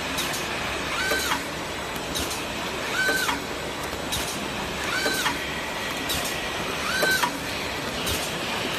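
Automatic napkin packing machine running and cycling about every two seconds. Each cycle has a short whine that rises, holds and drops, and sharp clicks fall between the cycles, over steady machine noise.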